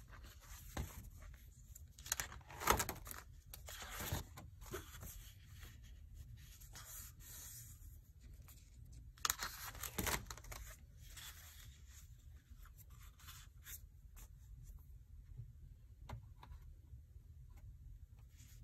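Sheets of thick watercolour paper in a spiral-bound sketchbook being handled and turned over: papery rustles and scrapes, in a cluster about two to four seconds in and another about nine to ten seconds in, over a low steady hum.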